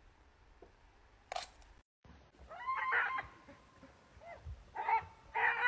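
Dog whining and crying in high-pitched, drawn-out calls, in about three bouts starting about halfway in: a tantrum of protest at being lifted out of the water.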